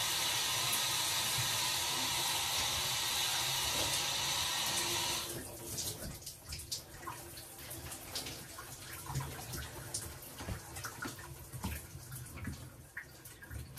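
Shower running, a steady rush of water that is shut off abruptly about five seconds in, followed by faint scattered clicks and knocks.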